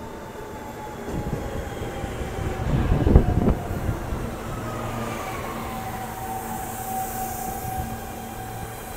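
New York City Subway R160 train pulling into the station and slowing. The wheels rumble and clatter along the rails as the cars pass, loudest about three seconds in, then a whine falls in pitch as the train brakes.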